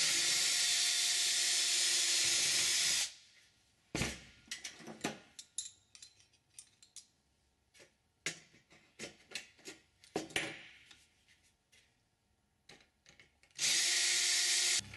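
Cordless drill running in two steady bursts, about three seconds long at first and about a second near the end, drilling holes in aluminium sheet out to final #30 size for rivets. In between come scattered clicks and knocks of cleco pliers and metal parts being handled.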